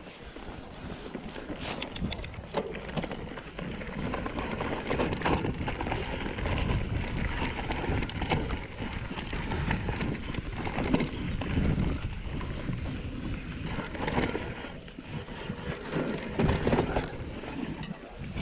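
Mountain bike descending a dirt singletrack trail at speed: tyres rolling over dirt and roots, with the bike's frame and parts rattling and clattering continuously over the bumps.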